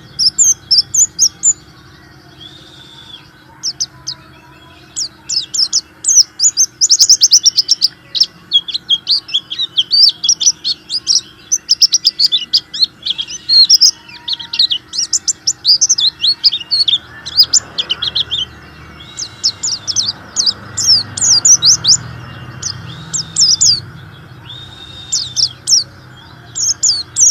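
A white-eye (pleci) in full song: rapid runs of high chirping twitters in bursts of a second or more, broken by short pauses.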